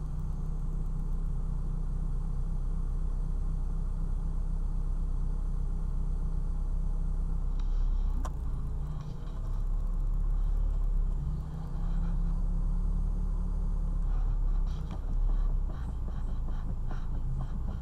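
Mitsubishi Lancer IX on the move with a steady low rumble, and clusters of short knocks about halfway through and again near the end: a knocking, worn steering rack.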